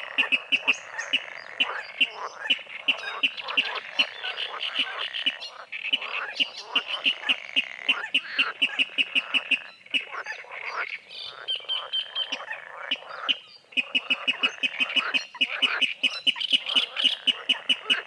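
A chorus of frogs croaking in rapid, rhythmic pulse trains, several pulses a second, with many callers overlapping.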